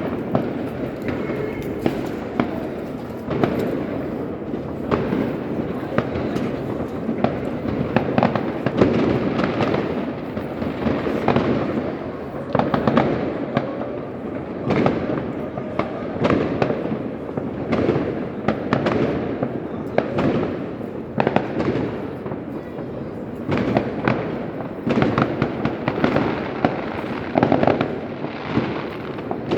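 Fireworks and firecrackers going off without a break: many overlapping sharp bangs and crackles over a constant rumble of more distant blasts.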